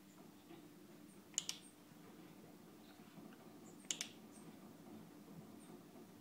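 Faint sharp double clicks, three times about two and a half seconds apart, over a low steady hum.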